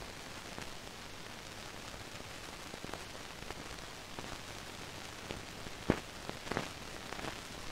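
Steady hiss of an old film soundtrack's noise floor, with a few faint clicks, the clearest about six seconds in.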